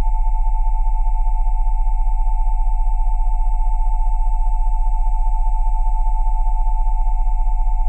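Synthesized sine tones at 727, 787 and 880 Hz held steady over a very low 20 Hz tone, from a Rife-frequency tone session. The close pitches give the sound a fast, even throb in loudness.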